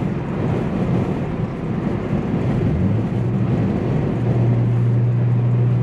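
Infiniti G sedan's V6 engine heard from inside the cabin while driving. Its note climbs about three seconds in, then holds steady, right after the driver struggles to get the manual gearbox into gear.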